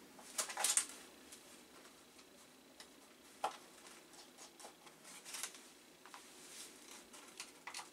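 Faint clicks and rustles of hand work on a computer motherboard: a small screwdriver at the board's screws and the foil-covered cardboard shield being handled, with one sharper click about halfway through.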